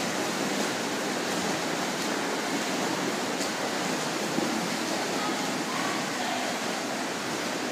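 Splashing of several swimmers racing freestyle in an indoor pool: a steady wash of water noise.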